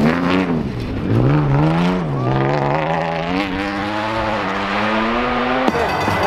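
Rally car engine at high revs on a stage, its pitch climbing and dropping again several times with gear changes. The sound changes suddenly near the end as the footage cuts.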